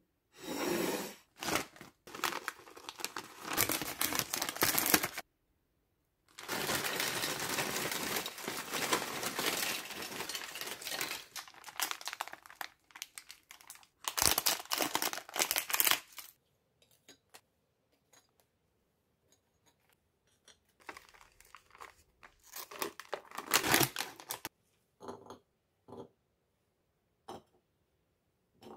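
Plastic snack packets crinkling and tearing open in several long spells, a cracker packet snipped with scissors about halfway through, and light clicks and taps as crackers and snacks are set onto porcelain plates between the spells.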